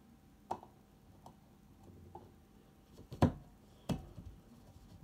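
A handful of separate sharp clicks and knocks over faint room tone, the loudest a little past three seconds in.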